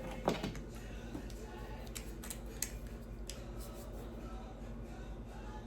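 Light clicks and handling noises from small parts and hand tools during work on a compression driver's diaphragm and leads: a sharper knock about a third of a second in, then a few scattered clicks, over a steady low hum.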